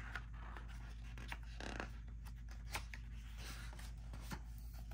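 Faint rustling and soft clicks of a hardcover picture book's paper pages being handled and turned by hand.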